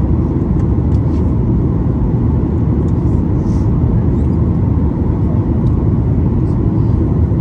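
Steady cabin noise inside a Boeing 737 MAX 8 in flight: the even, deep rush of airflow and engines heard from a seat in the cabin, with a faint steady hum above it.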